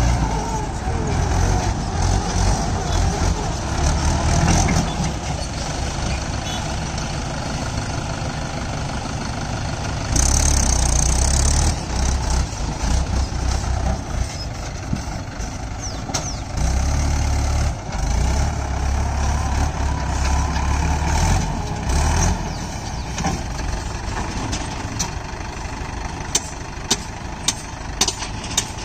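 Heavy diesel engine of a JCB backhoe loader working while loading mud, running steadily with louder surges of a few seconds as it takes load. A run of sharp knocks comes near the end.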